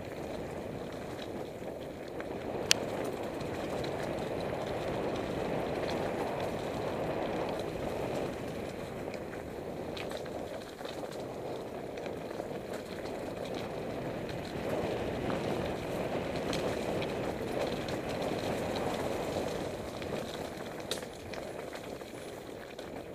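Mountain bike rolling fast down a dirt forest singletrack, heard from on board: a steady rush of tyre noise with scattered clicks and rattles, and one sharp knock about three seconds in.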